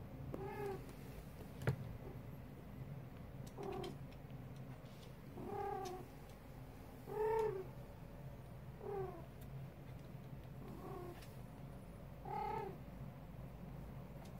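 A female silver tabby cat in heat calls over and over: seven short, rising-and-falling cries, one every one and a half to two seconds, the mating call of a queen in estrus. A steady low purr runs underneath, and a single sharp click comes about two seconds in.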